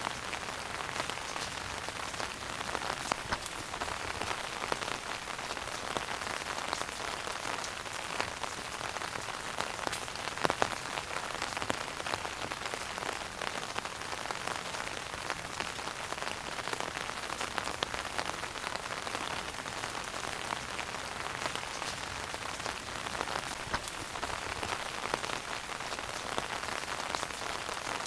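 Wood fire burning in a fireplace: a steady hiss with dense, continuous crackling and a few louder pops, the loudest about ten seconds in.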